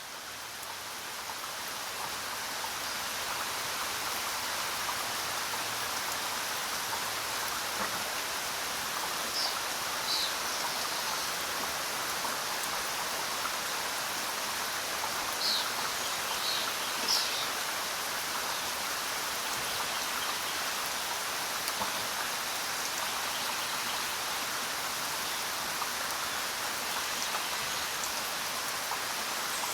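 Steady rain falling through a forest, swelling in over the first few seconds and then holding even. A few short, high bird chirps come through around the middle.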